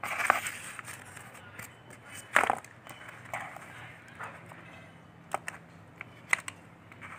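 Cardboard being shifted and rubbed under the hands while a steel tape measure is handled: scattered soft rustles and a few short, light clicks.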